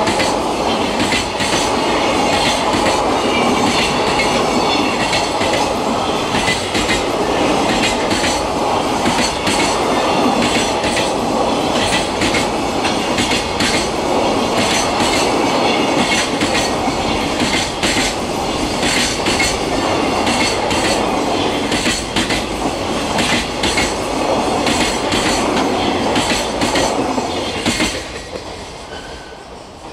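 Freight train of container flat wagons rolling past, its wheels clacking over rail joints in a steady stream of clicks over a continuous rumble. The sound falls away near the end as the last wagon passes.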